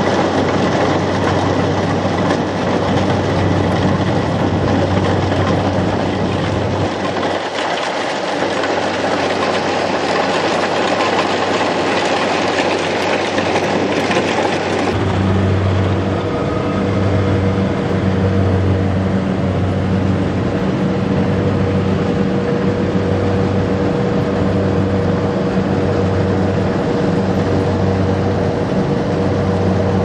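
Kubota DC-70 combine harvester running steadily, its engine and threshing machinery making a loud continuous mechanical noise. About halfway through the sound changes, and a low throb that rises and falls about once a second sets in.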